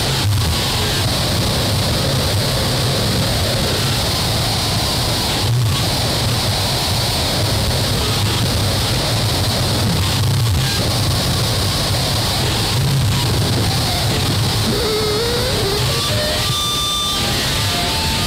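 Harsh noise music: dense, steady static-like noise over a low hum, broken by a few brief dropouts, with short warbling and gliding tones near the end.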